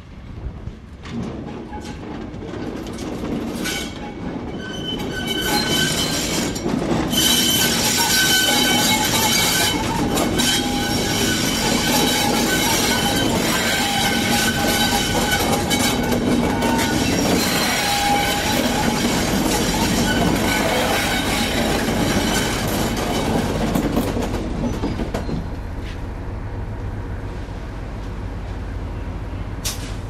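A set of class 73 electro-diesel locomotives running past close by, their engines working, with a high wheel squeal on the curved track. The sound builds over the first several seconds, stays loud through the middle, and eases off near the end as the train draws away.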